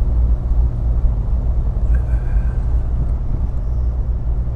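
Triumph Herald 13/60's 1300cc four-cylinder engine running steadily at low speed, a low rumble of engine and road noise as the car is driven gently.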